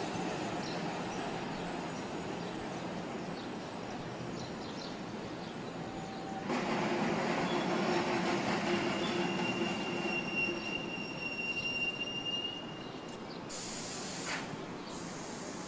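Heritage streetcar running on street-embedded rails, its steel wheels squealing in a steady high tone for several seconds. A steady rumble of the street and the rolling car comes before the squeal, and two short hisses follow near the end.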